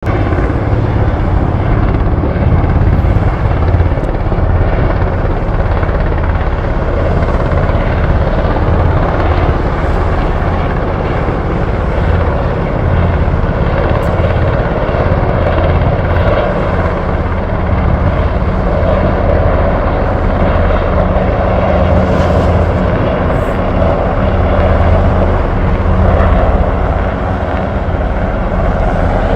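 KAI Surion firefighting helicopter flying, its rotor beating in a steady loud low chop with engine whine above it.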